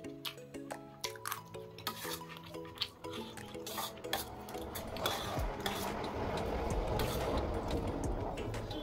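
Steel fork clinking and scraping against a steel plate of chow mein, with a stream of sharp clicks over background music. In the second half a steady rustling noise takes over.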